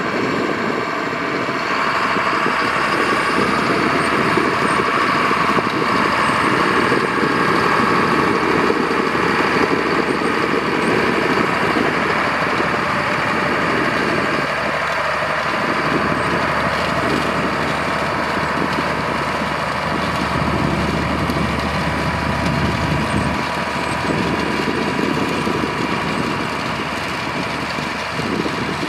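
John Deere diesel tractor engine running steadily while pulling a corn planter across the field.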